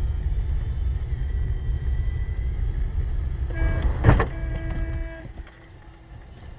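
Low engine and road rumble heard inside a moving car. About three and a half seconds in a car horn sounds in two short blasts, with a sharp thump between them; then the rumble fades down.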